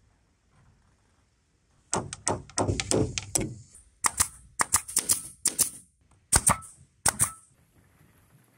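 Pneumatic nail gun firing nails into bamboo poles in quick strings of sharp shots: two runs of rapid shots a few seconds in, then a few more single shots near the end.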